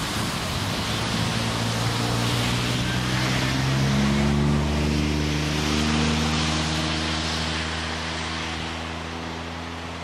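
A motor vehicle's engine hum with a hiss of road noise, growing louder to a peak about halfway through and then slowly fading.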